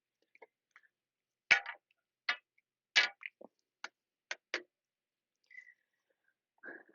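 A series of sharp, irregular clicks and knocks, about eight in all, the loudest two about a second and a half and three seconds in, with silence between them.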